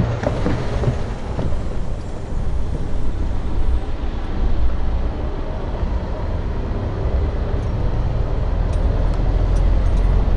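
Road traffic on a railway level crossing: a car drives over the rails, with a few short knocks in the first second or so. A steady low rumble of traffic follows and grows a little louder near the end.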